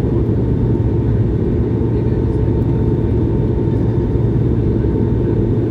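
Cabin noise of an Airbus A220-100 in its climb: its Pratt & Whitney PW1500G geared turbofans and the rushing air make a steady, deep rumble with a faint, even whine on top.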